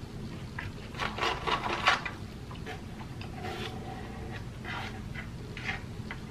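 Close-miked chewing of crispy fried food, a crackly crunching that is loudest about a second in and comes back in shorter bits later, with a light rustle of food being picked from the tray.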